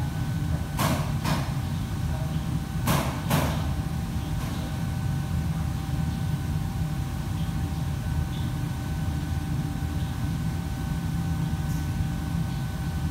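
Commercial kitchen background noise: a steady low machine hum with a faint high whine, and two pairs of sharp clattering knocks about one and three seconds in.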